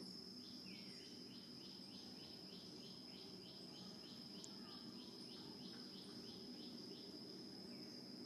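Faint steady high-pitched insect trill, cricket-like, with a run of short chirps repeating about three times a second through most of the stretch.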